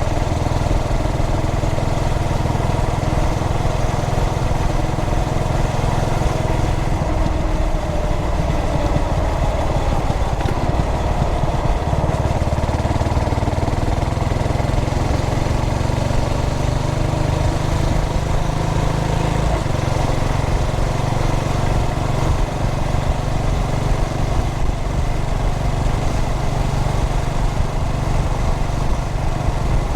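Carbureted 2003 Yamaha SR400's air-cooled single-cylinder engine running steadily while riding, its pitch stepping up about twelve seconds in and dropping back a few seconds later.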